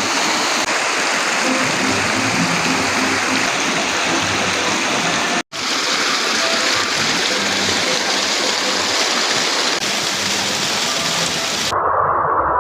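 Steady rush of flowing water from a stream or small waterfall, broken by a split-second dropout about five and a half seconds in. Near the end the water sound cuts off abruptly and gives way to a narrower midrange sound.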